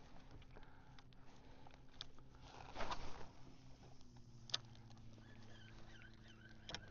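A kayak's motor humming steadily, its pitch stepping slightly lower about four seconds in. A brief rush of noise comes about three seconds in, and there are a couple of sharp clicks.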